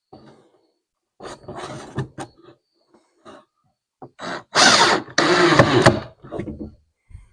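Hands-on handling of tools and objects on a workbench: scattered knocks and clatter, then two loud half-second bursts of scraping or rustling noise a little after the middle.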